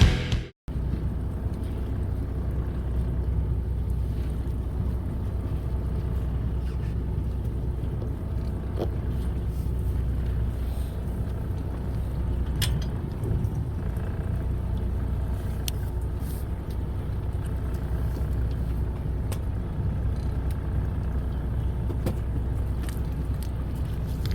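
Fishing boat's engine running steadily, a low drone with a few faint clicks and taps scattered over it.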